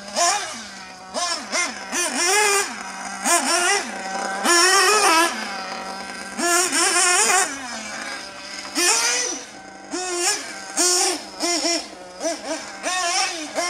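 Novarossi Beat 5 nitro engine of a Losi 3.0 1/8-scale off-road buggy, revving up in repeated short bursts and falling back each time to a steady lower drone as the car is driven round the track. There are about ten rising-and-falling revs.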